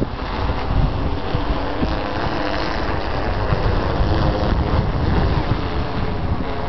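Steady wind noise buffeting the microphone, fluttering at the low end.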